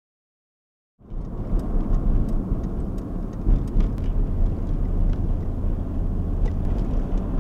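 Steady low road-and-engine rumble inside a moving car's cabin, starting abruptly about a second in, with faint scattered clicks over it.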